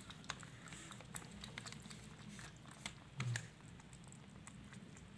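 Several kittens lapping milk from a plastic plate: faint, quick, irregular wet clicks of their tongues, with one brief low sound about three seconds in.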